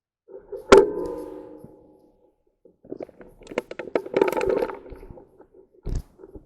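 A sharp metallic clank that rings on and fades over about a second, followed a couple of seconds later by a clatter of quick knocks and rattles of handled gear.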